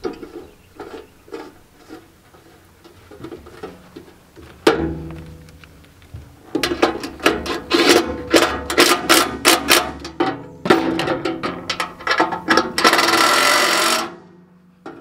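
Metal knocks and rattles in a steel ammo can as bolts are fitted through it, growing into a run of quick, irregular clicks and knocks. Near the end a Makita 18V cordless driver runs for about a second and a half and stops suddenly.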